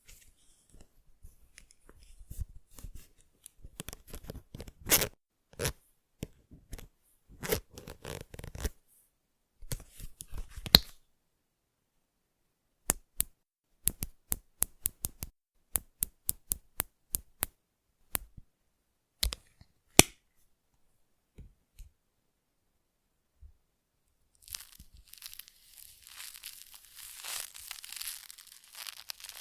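Close-miked ASMR handling sounds: crackling and crinkling bursts, then a run of sharp single clicks at about two a second, and after a short pause a steady crinkly rustle near the end.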